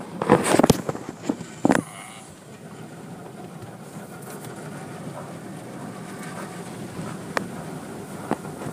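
Automatic car wash heard from inside the car: water spray and rotating brushes running over the body and windshield make a steady rushing noise. There are a few loud thumps in the first two seconds and a couple of light clicks near the end.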